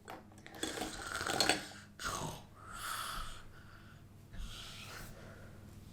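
Plastic marker pens rattling and clattering in irregular bursts as hands rummage through them to pick colours.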